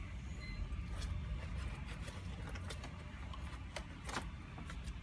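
Light knocks and clicks of a plastic hydroponic tray being handled and set back into place, a few separate taps, over a steady low rumble.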